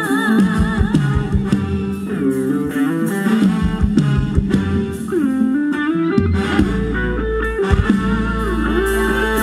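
Live Thai ramwong band music, an instrumental stretch with no singing: a lead melody with vibrato over a moving bass line and a steady beat.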